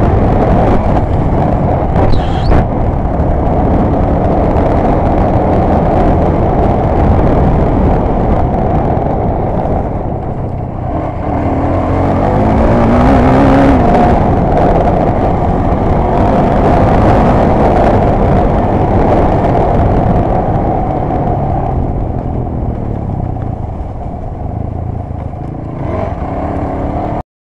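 An off-road vehicle's engine running hard along a dirt trail, with wind rushing over the microphone; the revs rise and ease off, climbing about twelve seconds in. A couple of sharp knocks come about two seconds in, and the sound cuts off abruptly near the end.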